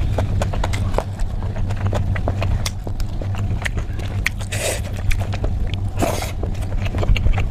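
Close-up eating sounds: quick wet clicks of chewing and mouth smacking, with two louder noisy bursts in the second half, over a steady low hum.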